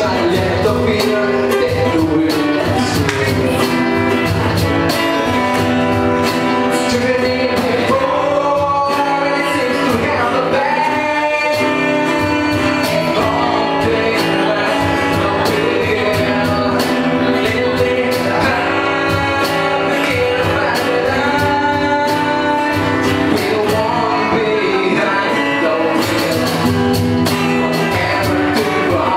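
Live rock band playing, with a voice singing the melody over drums, bass and guitars.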